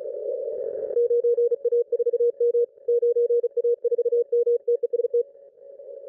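Morse code (CW) from a 20-metre ham band station, heard through an SDR receiver's narrow CW filter: a fast on-off keyed tone near 500 Hz over a narrow band of hiss, starting about a second in and stopping a little after five seconds. The operator is sending his call sign, 9A4M, and 'test', which the speaker takes for a transmitter test.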